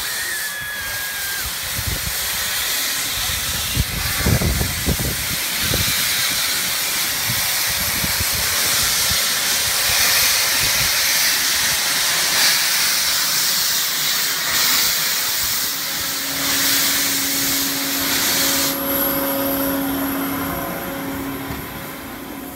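D51 steam locomotive starting off, its cylinder drain cocks blasting steam in a loud, steady hiss, with a few heavy exhaust chuffs about four seconds in. The hiss cuts off sharply near the end, leaving a steady low hum.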